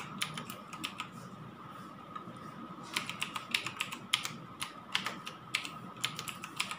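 Typing on a computer keyboard: quick runs of key clicks, thinning out for about two seconds before picking up again about three seconds in.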